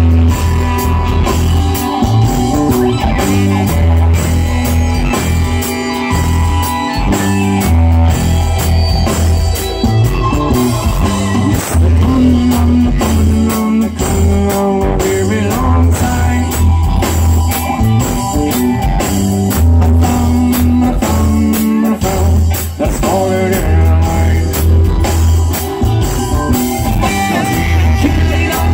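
Live band playing a song: electric guitar and drum kit over a heavy bass line in long repeating notes, with keyboards.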